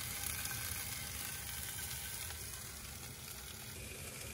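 Sausages frying in a pan, a steady sizzle.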